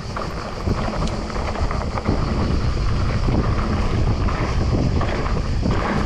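Wind buffeting the microphone as a Cube Reaction hardtail mountain bike rolls fast down a dry, stony dirt trail, with tyre rumble and the bike rattling over the bumps. It gets louder about two seconds in.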